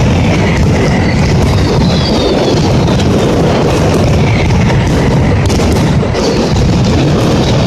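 Mascletà firecracker barrage: a dense, unbroken run of bangs that merge into a steady rumble, with several falling whistles over it.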